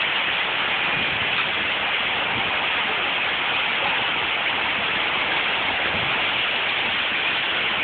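Heavy rain pouring down in a severe storm, a loud, steady hiss with no let-up.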